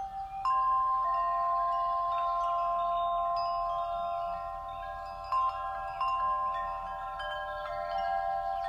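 Chimes ringing: tuned tones struck at irregular moments, each ringing on and overlapping the others.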